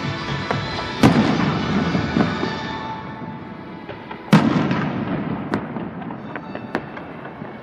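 Fireworks bursting: two loud bangs, about a second in and just past four seconds, followed by a few fainter pops, over music that fades.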